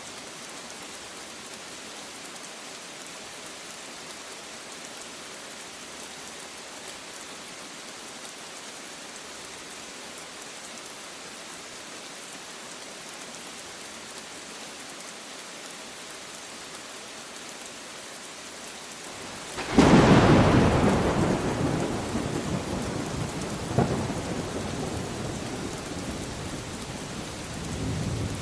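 Steady rain falling, then a sudden loud thunderclap about twenty seconds in that rolls on as a long rumble slowly dying away, with a second sharp crack a few seconds later and the rumble swelling again near the end.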